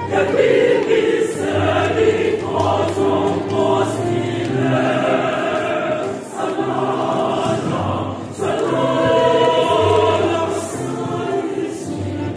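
Mixed choir of women's and men's voices singing together in several parts, with short breaks between phrases about six and eight and a half seconds in.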